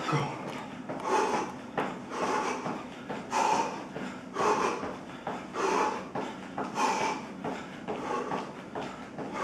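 A man breathing hard and heavily, about one loud breath a second, panting as he recovers after a set of lunges with dumbbell curls.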